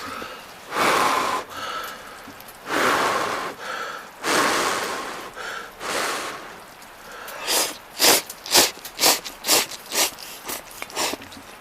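A person slurping hot noodles: a few long slurps, then a quick run of short sucking slurps near the end.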